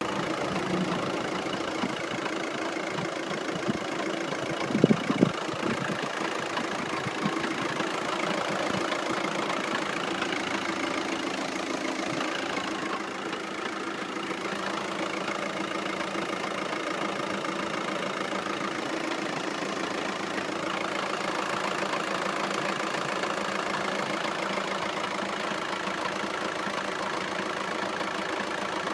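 Audi car engine idling with a ticking, knocking noise that the owner puts down to the dual mass flywheel or clutch. A few louder knocks come about five seconds in.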